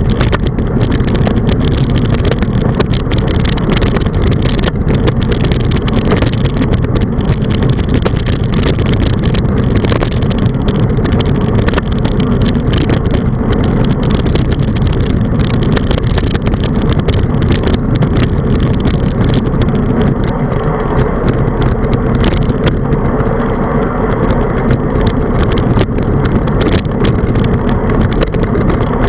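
Wind buffeting the microphone of a handlebar-mounted camera on a moving bicycle, a loud steady rumble mixed with tyre noise on asphalt and many small clicks and rattles.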